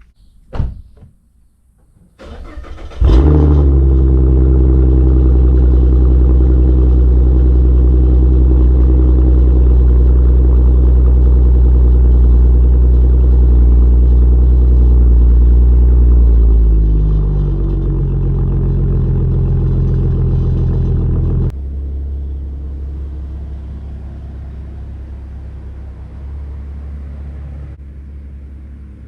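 A 2014 Mustang's 3.7-litre V6 is cranked and starts about three seconds in, then runs at a raised idle. After about a dozen seconds the idle drops and settles lower. Some seconds later the engine sound suddenly becomes much quieter and fades gradually. A short knock is heard just before the start.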